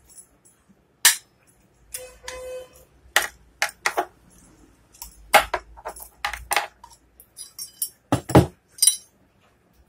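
Metal clinks and clanks as the parts of a dismantled angle grinder, its armature and housing, are handled and knocked together, with a short scrape about two seconds in.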